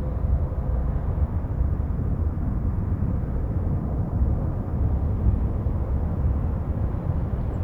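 Jet airliner climbing away after takeoff, its engines heard as a low, steady rumble.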